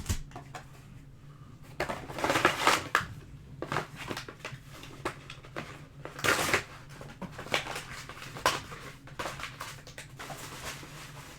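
Crinkling, crackling and tearing of plastic wrap and cardboard as a sealed box of trading-card packs is opened and handled, in irregular bursts, loudest about two and six seconds in. A faint steady hum runs underneath.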